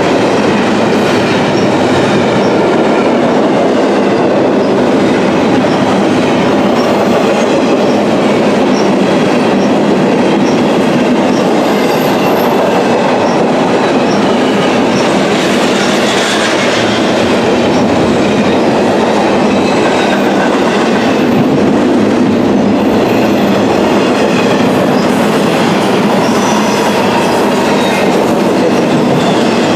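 Empty double-stack well cars of a fast freight train rolling past close by: loud, steady wheel-on-rail noise with a faint, regular clicking of wheels over the rail.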